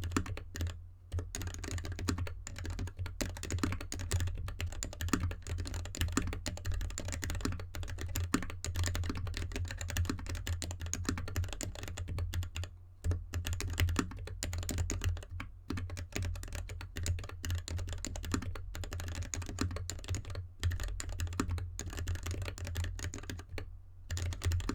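Continuous typing on a GK64X mechanical keyboard in an anodized aluminium case with dampening foam, with lubed linear Gateron switches and DSA keycaps, set straight on the desk with no mat. There are a few short pauses, and a steady low hum runs underneath.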